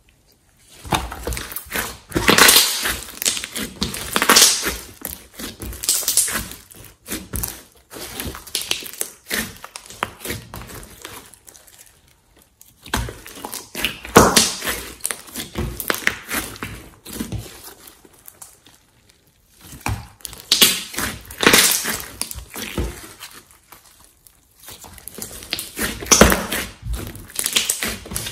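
Hands squeezing, stretching and pressing a large lump of glossy slime, giving wet squishing sounds and pops of trapped air. The sounds come in stretches broken by brief pauses.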